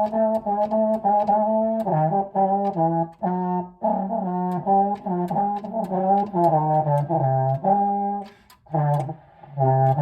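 French horn played with its trigger held: a run of short tongued notes that steps mostly downward like a scale, with one brief pause for breath near the end.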